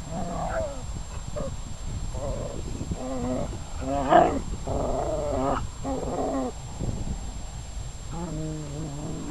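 Rough collies growling at each other while play-fighting, with several drawn-out growls a second or so apart.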